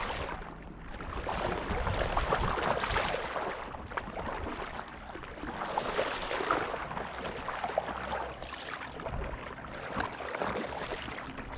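Water splashing and lapping around a tandem kayak being paddled, swelling every few seconds with the strokes, over a steady rumble of wind on the microphone.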